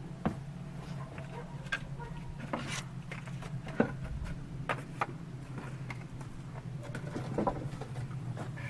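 Irregular sharp clicks and crackles over a steady low hum, the loudest click a little before 4 seconds in.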